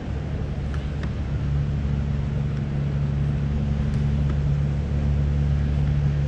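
A steady low mechanical hum, like an engine or machine running, with a few faint clicks over it.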